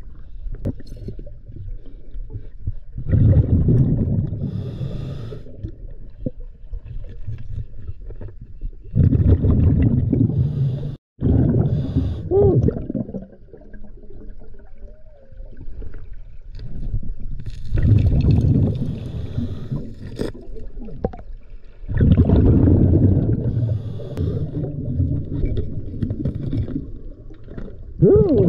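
Scuba diver's regulator heard through an underwater camera: exhaled air bubbles rumbling in repeated bursts a few seconds apart, with quieter inhalation between.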